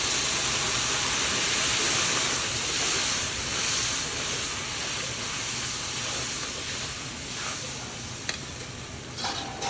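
Water poured into hot mustard oil and frying masala in an iron kadhai, hissing and sizzling hard as it flashes to steam. The hiss is loudest in the first few seconds, then slowly dies down as the masala is stirred, with a single sharp tap near the end.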